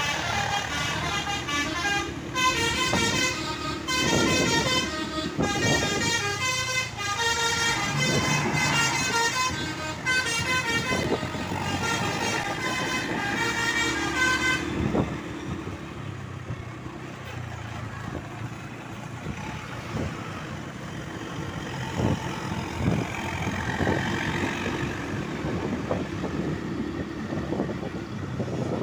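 Tour bus's Basuri 'telolet' multi-tone air horn playing a rapid melodic tune for about fifteen seconds, then stopping and leaving quieter vehicle noise from the passing bus.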